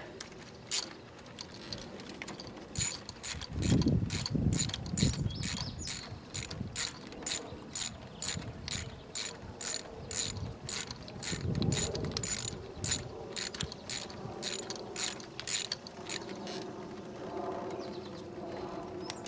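Socket ratchet wrench clicking in an even run, about two clicks a second, as a bolt is turned back in. Dull knocks come about four seconds in and again around twelve seconds.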